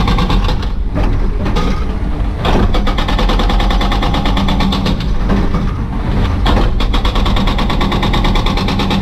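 Excavator-mounted hydraulic breaker hammering concrete in a rapid, steady stream of blows, heard from inside the cab over the excavator's diesel engine, with a few brief breaks in the hammering.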